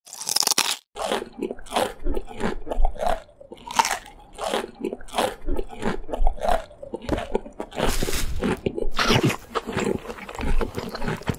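Repeated crunchy bites and chewing of a raw zucchini, one crisp crunch after another, with a louder stretch of crunching near the end.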